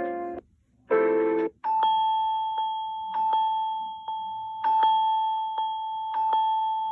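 Samsung Galaxy S22 ringtones playing one after another: the end of a strummed tune, a brief chord, then a ringtone of one long held chime-like tone with short struck notes over it.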